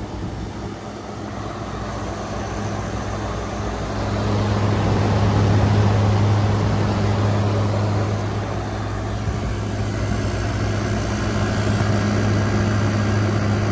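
2023 General Electric 5,000 BTU window air conditioner running on high cool: a steady low hum from the compressor under a whooshing fan noise, the hum growing louder about four seconds in.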